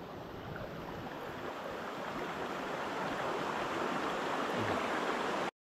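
Shallow rocky creek flowing, a steady rush and ripple of water that grows a little louder toward the end and cuts off suddenly just before the end.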